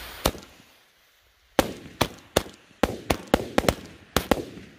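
Jorge JW25 Cudak firework firing: one sharp bang, then after a second's pause a string of sharp bangs at roughly two to four a second, each trailing off briefly.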